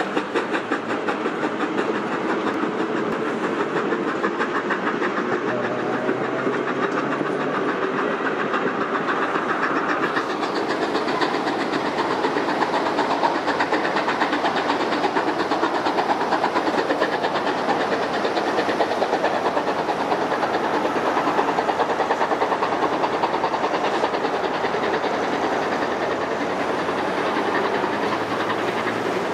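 Steam-hauled train of heritage passenger cars pulling out, its wheels clattering steadily over the rails. The sound changes character about ten seconds in as the train draws away.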